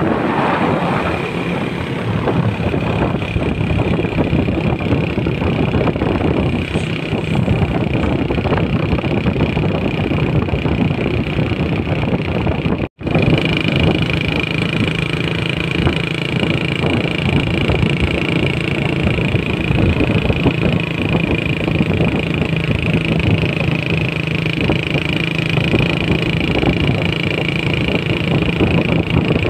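Heavy MAN tractor trucks towing lowbed trailers driving past, their diesel engines running steadily with road noise. About thirteen seconds in the sound cuts out for an instant, then the engine sound continues with a steady high tone over it.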